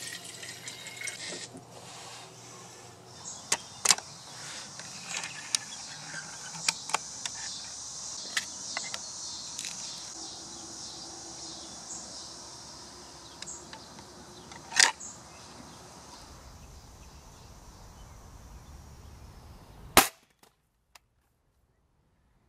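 Scattered small handling clicks and knocks over a steady high hiss, then, near the end, one sharp, loud shot from a Walther Falcon Hunter .25-calibre spring pellet rifle.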